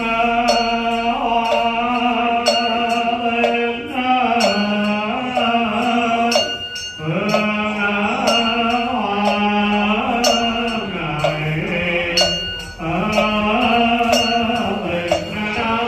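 A Buddhist monk chanting the liturgy of the offering to wandering souls in long held notes that step up and down in pitch. A sharp ritual percussion strike keeps time about once a second.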